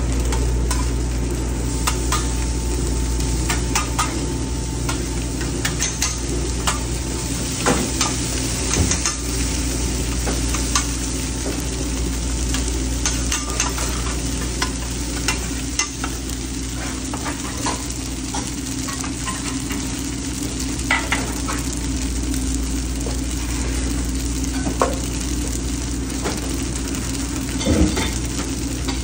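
Hash browns and chopped meat sizzling on a flat-top griddle. A metal spatula scrapes and taps on the steel now and then, over a steady low hum.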